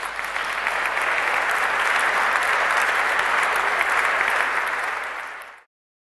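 Audience applauding, the clapping swelling over the first couple of seconds, holding steady, then cutting off suddenly near the end.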